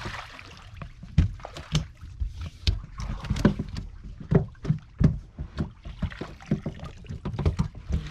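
Irregular knocks and thumps on a wooden fishing boat as a fish is scooped up with a long-handled landing net and hauled aboard. Under them runs the steady low hum of the boat's inboard engine.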